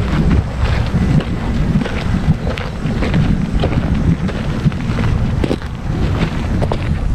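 Wind buffeting the microphone of a GoPro worn on a dog's harness: a steady, uneven low rumble, with scattered small clicks through it.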